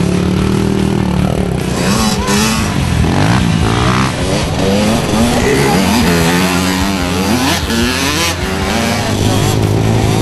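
Several small youth dirt bikes revving as they ride past one after another, their engine pitches overlapping and rising and falling as the riders work the throttle over a bump.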